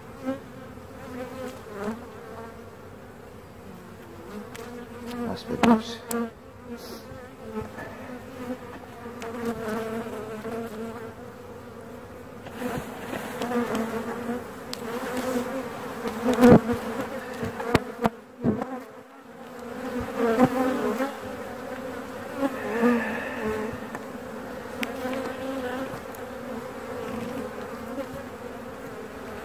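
A colony of honeybees buzzing in a steady hum over an open hive, with a few sharp knocks as the wooden frames are handled. The loudest knock comes about sixteen seconds in.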